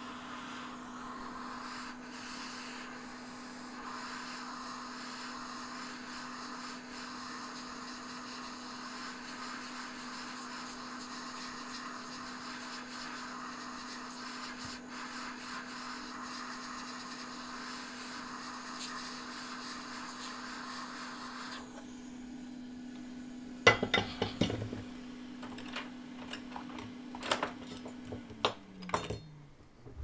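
Heat gun blowing hot air onto a remote's label to soften its adhesive: a steady rush of air over a constant motor hum. About 22 seconds in the air rush drops away, and near the end the motor hum falls in pitch as it spins down. Several sharp clicks and knocks come in the last seconds.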